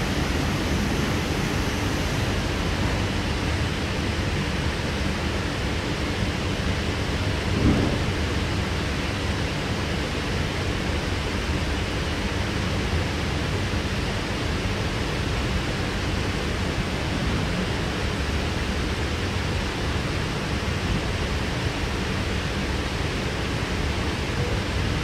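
Steady running rumble of a K-set double-deck electric train in motion, heard from inside the passenger car, with one louder knock about eight seconds in.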